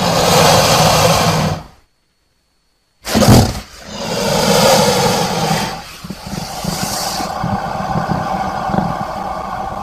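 Crocodile hissing and growling in breathy bursts: one at the start, a short silence, a sudden loud burst about three seconds in, then a long growl with a fast low rattle running on until near the end.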